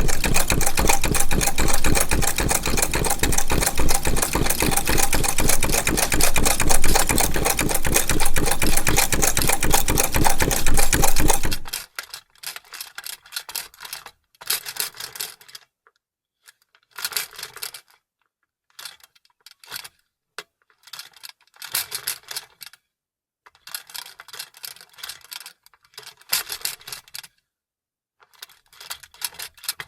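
Vintage sewing machine stitching steadily at speed, a rapid even run of needle strokes that stops abruptly about twelve seconds in. After that come only short, much quieter bursts of clicking and rubbing with silent pauses between them.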